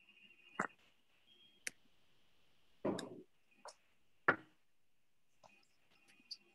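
A few scattered clicks and soft knocks, about five in all, the loudest a dull knock about three seconds in, over faint room tone on a video-call line.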